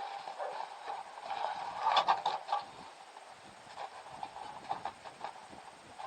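Irregular knocks and clicks, the loudest cluster about two seconds in.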